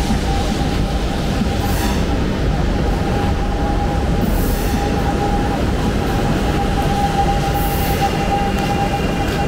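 Electric commuter train at a station platform: a loud, steady mechanical noise with a high whine held throughout, and three short high hisses about three seconds apart.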